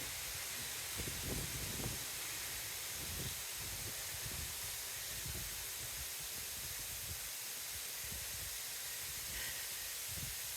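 Steady hiss, with a few brief low rumbles in the first few seconds.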